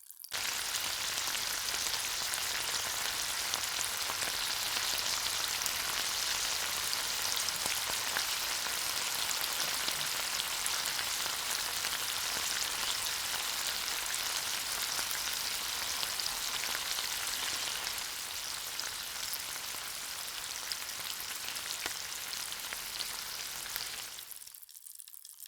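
Coated fish pieces frying in hot oil in a tiny pan: a steady sizzle with fine crackling that starts just after the beginning, eases a little in the last few seconds and stops just before the end.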